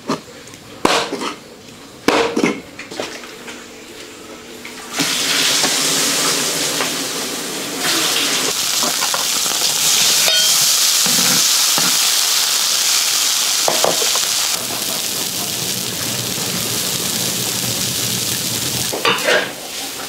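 A knife chops through a fish on a cutting board a few times. About five seconds in, food is tipped into hot oil in a large wok, and a loud sizzle starts suddenly. The frying then runs on steadily while the wok is stirred.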